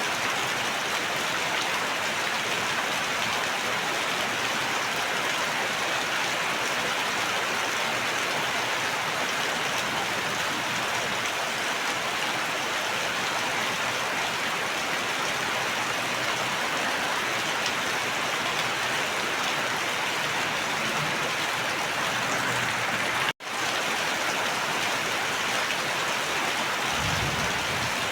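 Steady, dense rain hiss with no breaks in its texture. It cuts out for an instant about 23 seconds in, and a low rumble comes in near the end.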